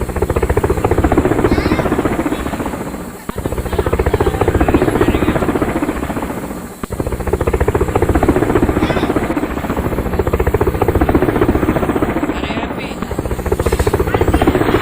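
Toy helicopter's built-in electronic sound effect: a recorded helicopter rotor chop played from a small speaker, looping with a short break about every three and a half seconds.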